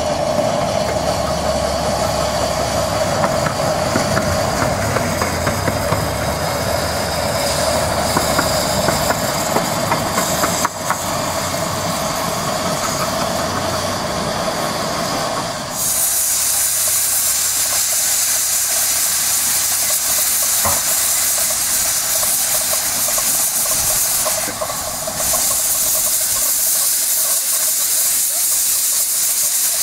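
A 15-inch-gauge diesel locomotive's engine running with a steady hum. About halfway through, this gives way to a loud, steady hiss of steam from a one-third-scale 4-6-2 Pacific steam locomotive venting at its cylinders.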